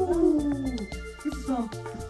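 Background music with a steady low beat, over which a child's long whining "no" slides down in pitch and fades out within the first second.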